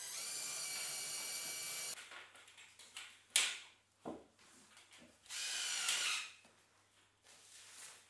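Cordless drill-driver running as it drives screws into the galvanised steel frame sections: one steady whine of about two seconds, then a second, shorter burst about halfway through. Between the two runs come a couple of sharp knocks.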